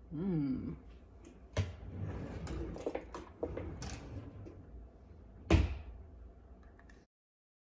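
Kitchen handling sounds: a small plastic cup of red miso paste tapped and scraped into a glass mixing bowl, then a metal fork knocking and scraping against the glass as the filling is mixed. There are several sharp knocks, the loudest about five and a half seconds in, and the sound cuts off suddenly near the end.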